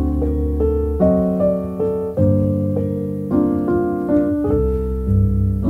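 Piano music: single notes and chords changing about every half second over held bass notes.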